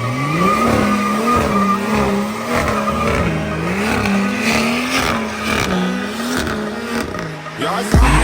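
A car engine held at high revs in a burnout, the pitch repeatedly dropping and climbing back about once a second, over a hiss of tyres spinning and squealing.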